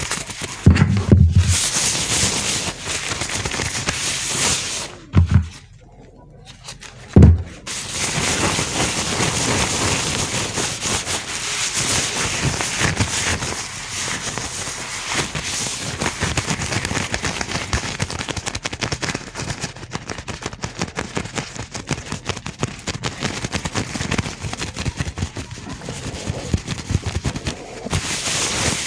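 Gloved hands rubbing and crinkling close to a microphone: a dense, continuous crackle, with a few dull thumps in the first seven seconds, the loudest about seven seconds in.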